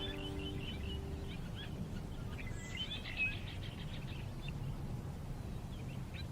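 Small birds chirping in quick, scattered calls over a steady low background rumble. A held music chord fades out in the first second or so.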